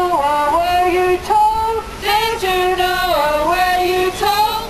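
A woman's voice singing unaccompanied, a slow melody with long held notes that slide between pitches.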